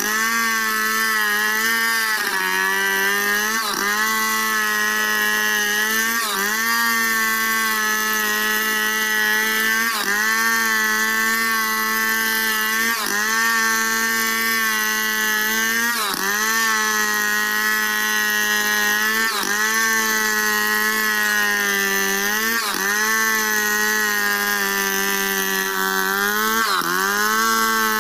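Stihl two-stroke chainsaw running at full throttle while ripping lengthwise through a log in a freehand milling cut. Its pitch sags briefly and recovers every two to three seconds as it works through the wood.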